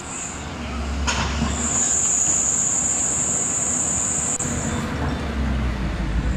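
Hydraulic excavator running under load as its bucket breaks into a concrete building: a steady low engine rumble with demolition noise, a sharp crack about a second in, and a high steady squeal through the middle of it.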